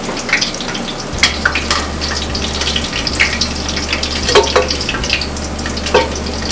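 Chickpea-batter pakoras deep-frying in hot oil, sizzling and crackling steadily, with a few sharp clinks of a metal spider strainer against the pan.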